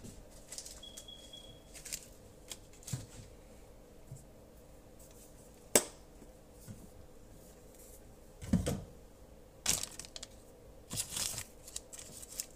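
Kitchen handling noises: scattered clicks and knocks with bits of rustling, a sharp click about six seconds in and a dull thump a little later. A brief high beep sounds about a second in.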